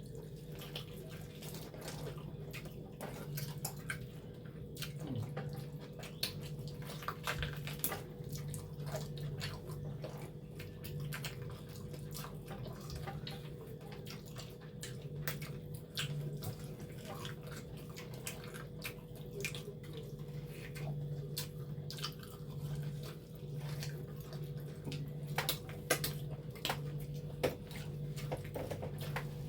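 Wet clicking and smacking eating sounds from chewing spicy cow leg and Maggi noodles, with many short sharp clicks at uneven intervals. A steady low hum runs underneath.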